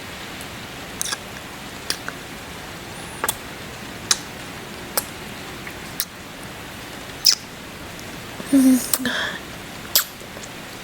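Close-miked ASMR kiss sounds: short wet lip smacks about once a second over a steady rain sound bed, with a longer kiss carrying a brief hum about three-quarters of the way through.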